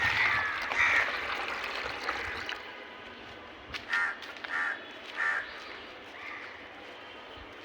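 Birds calling while they wait at put-out food: a few calls together at the start, then three short calls a little over half a second apart past the middle, and a fainter one after.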